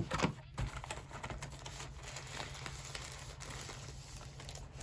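A couple of sharp knocks at the start, then faint rustling and scattered small clicks and taps as a boxed mechanical keyboard and its packaging are handled.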